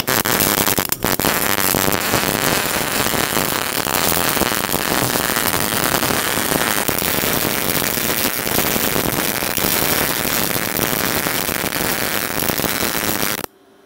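MIG welding arc under CO2 shielding gas, crackling steadily as the wire feeds in and spatters. It cuts off sharply near the end as the torch trigger is released.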